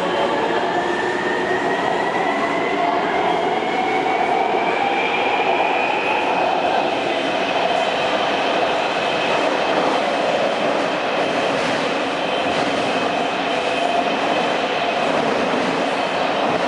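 Taipei Metro C321 train's traction inverter whine, several tones rising in pitch over the first six seconds as the train gathers speed, then holding steady, over steady wheel-on-rail running noise.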